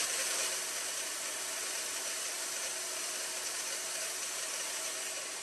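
Portable band saw running steadily while it cuts the excess shank off a blind rivet held in vise grips.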